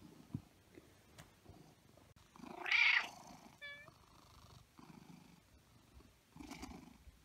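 Domestic cat purring in slow, rhythmic pulses, with a louder, breathy sound about three seconds in and a brief high chirp right after it.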